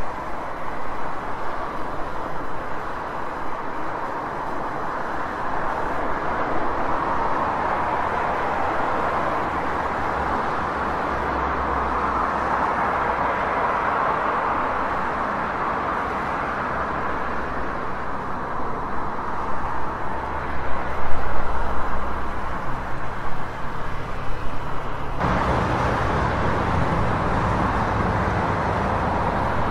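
Steady outdoor road-traffic noise: a continuous rushing hum of passing vehicles, with a low rumble underneath. The sound changes abruptly about 25 seconds in.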